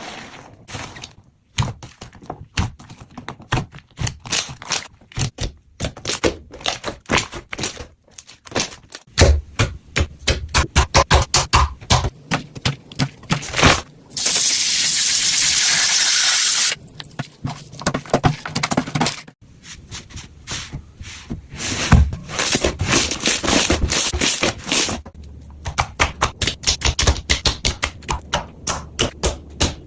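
Slime being squeezed, poked and stretched, giving rapid sticky clicking and crackling pops in irregular runs. Near the middle a steady hiss lasts about two and a half seconds before the clicking resumes.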